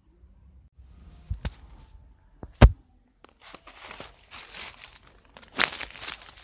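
Handling noise from a phone held against the body: a few sharp knocks, then scratchy rustling and crackling as the phone rubs against hand and skin, with a loud scrape near the end.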